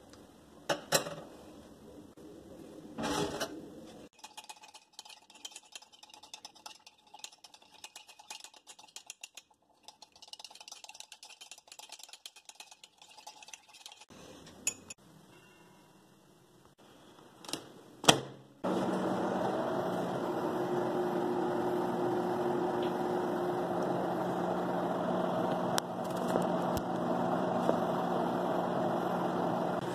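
A mug is handled with scattered light clicks and knocks, then a sharp knock, and a microwave oven starts running with a steady hum for the last third.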